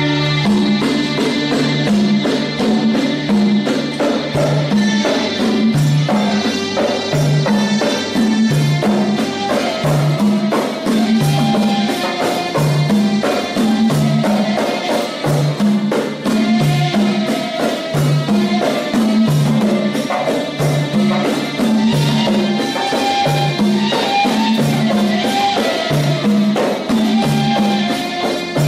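Sufi sama'i devotional music: several large hand-held frame drums beaten by hand in a fast, steady rhythm, with voices singing over them.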